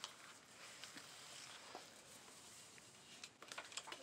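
Near silence with a faint hiss of room tone, and a few faint clicks near the end as an eyeshadow palette is handled.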